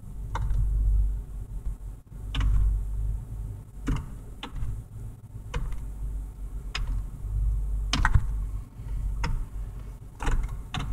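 Low rumble of a new Ford pickup idling, heard from inside the cab, with about ten irregular clicks and knocks as the gear shifter is moved between positions.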